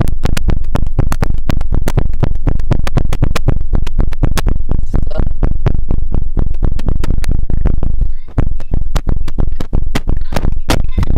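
Loud, overdriven smacking clicks through a microphone, many a second, reproducing the smacking heard on the call, with a brief break about eight seconds in.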